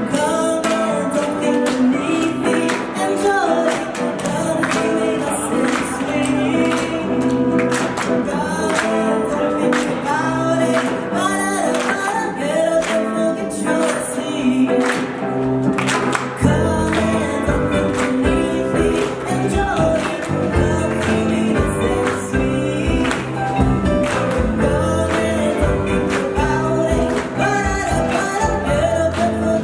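A band playing a rock song with singing. About halfway through, the bass gets much heavier.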